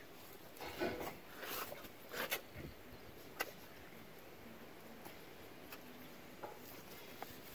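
White rhino calf mouthing and sucking on a safari vehicle's bumper: a scatter of soft clicks, smacks and short scrapes, the loudest about two seconds in.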